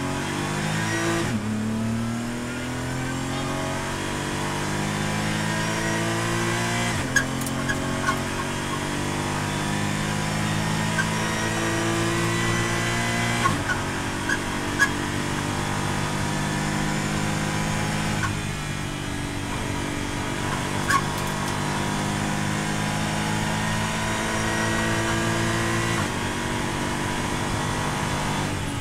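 Porsche GT4's flat-six engine under full-throttle acceleration, heard from inside the race car's cabin. The revs climb steadily and drop sharply with each upshift, about every five to six seconds, from first gear up to fifth. A few short sharp ticks come through over the engine.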